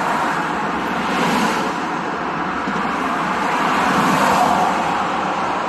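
Steady noise of road traffic going by, an even rush with no distinct engine note.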